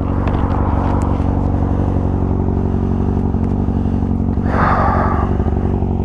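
2023 Kawasaki ZX-6R's 636 cc inline-four engine idling steadily at an even pitch. A brief rush of noise comes in about four and a half seconds in.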